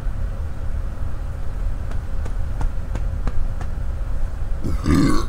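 Swallowing malt liquor from a 40-ounce bottle, a run of soft gulps about three a second, then a loud burp near the end.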